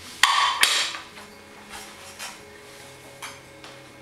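A plate set down on a granite countertop: two sharp clacks close together about a quarter second in, then a few faint knocks and clicks.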